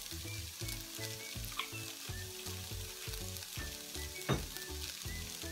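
Fish fillets, squid and vermicelli sizzling steadily in a frying pan over the flame, under background music with a steady beat. A single sharp clink about four seconds in.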